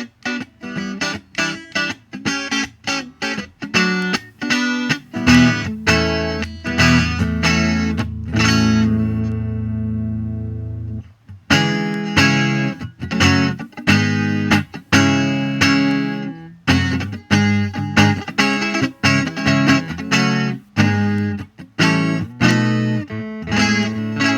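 Rickenbacker 360/12-style twelve-string electric guitar playing fast chord strokes; the strokes stop about eight seconds in and a chord rings out for about three seconds, then quick playing starts again.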